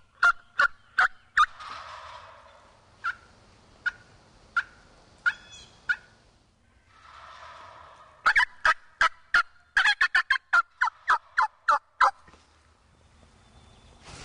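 Eastern wild turkeys calling: two rolling gobbles, one about a second and a half in and one around the middle. Between and around them come runs of sharp yelps: a quick string of five at the start, five slower ones spaced well apart, then a fast run of about a dozen.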